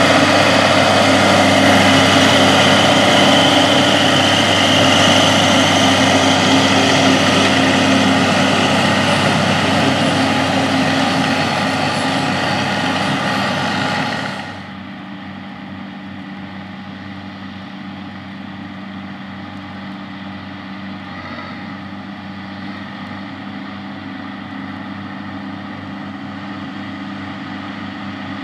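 John Deere 4955 tractor's six-cylinder diesel engine running steadily while it pulls a loaded lime spreader. It is loud and close at first, then about halfway through cuts suddenly to a quieter, more distant engine sound that continues steadily.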